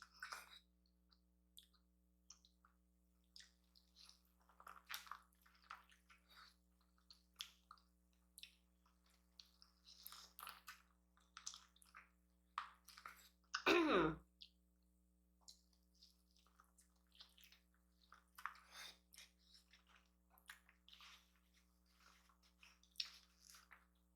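Close-up eating sounds: wet chewing, lip smacks and nibbling on buttered corn on the cob, scattered irregularly throughout. About halfway through there is one brief, louder sound that falls in pitch.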